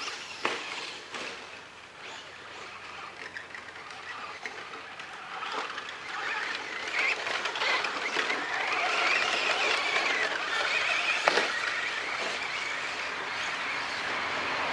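Electric radio-controlled short-course trucks, a Traxxas Slash among them, driving on dirt. Their motor whine rises and falls with the throttle and grows louder from about six seconds in. A few sharp knocks come from the trucks bumping over the track, the loudest about eleven seconds in.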